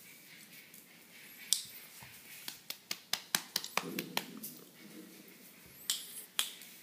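A series of short, sharp clicks coming in quick irregular runs, thickest from about a second and a half in and again near the end, with a brief low rustle about four seconds in.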